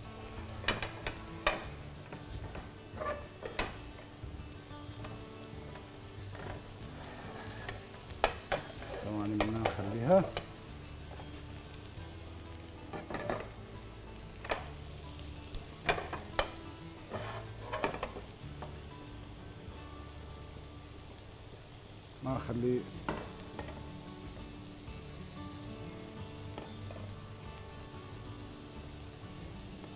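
Butter and olive oil sizzling in a frying pan as the butter melts, with scattered knocks and scrapes of a utensil stirring against the pan.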